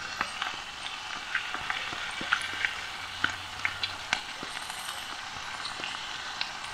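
Food being stirred in a small aluminium pot on a camping gas stove: irregular clicks and scrapes of the spoon against the pot over a steady hiss of sizzling and the burner.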